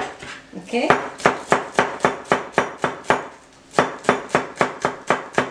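A knife chopping green onions on a cutting board, striking the board rapidly at about four strokes a second, with a brief pause about three seconds in.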